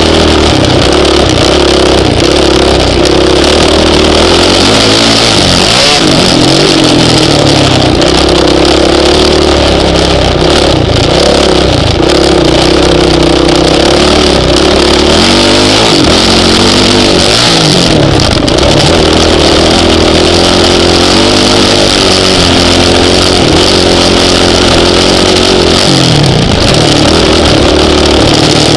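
Honda CRF450X single-cylinder four-stroke dirt bike engine under a rider's throttle, heard up close: the engine note rises and falls, dropping off briefly a few times as the throttle is shut.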